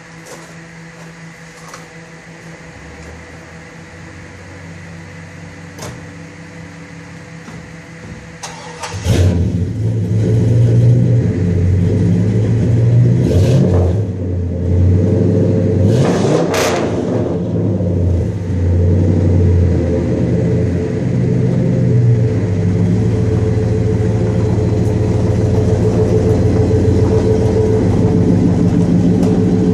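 A 5.3-litre LS V8 in an Oldsmobile Cutlass, breathing through a 2.5-inch dual exhaust with Flowmaster Super 44 mufflers, starts up about nine seconds in after a few quiet seconds. It is blipped a couple of times, then settles into a deep, steady idle.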